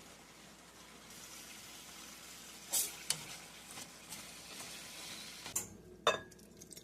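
Cut-up chicken tenders sizzling in a frying pan with peppers and onions, the sizzle picking up about a second in, with a few sharp knocks of a utensil against the pan as it is stirred. The sizzle drops away about five and a half seconds in.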